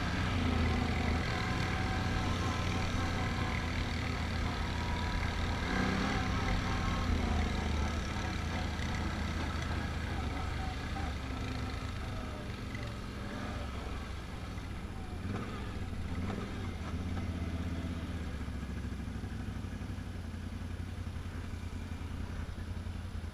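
Can-Am Outlander ATV engine running under way on a dirt trail, heard from the rider's seat along with the Honda Recon ATV ahead. The engine note eases and drops lower about eight seconds in as the machines slow to a crawl.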